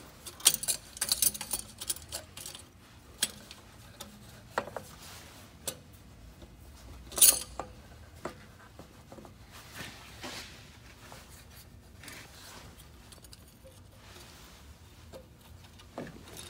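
Metal clinks and scrapes of an aluminium intake elbow pipe and its band clamp being handled and fitted onto the engine by hand: a flurry of light clinks in the first couple of seconds, one louder clank about seven seconds in, then quieter rubbing and ticks.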